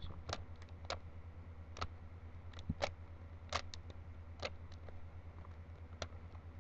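Plastic Rubik's Cube being turned by hand: a string of irregular, sharp clicks as the layers are twisted, over a steady low hum.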